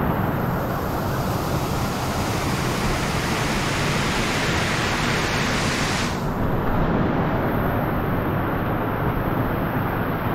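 Steady rush of a waterfall, close by, with water splashing onto rock; its hissing top end drops away about six seconds in.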